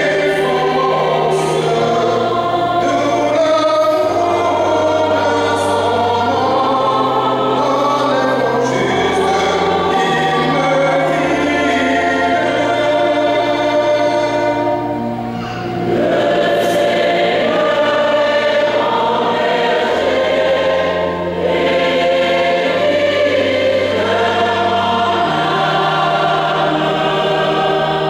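Church choir singing in held chords over sustained low notes that change every second or two, with two short breaths between phrases.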